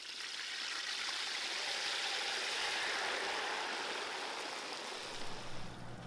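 Lentils deep-frying in hot oil, a steady sizzling hiss that swells about a second in and eases a little near the end. The sizzling means the lentils are still cooking; they are ready to pull once it stops.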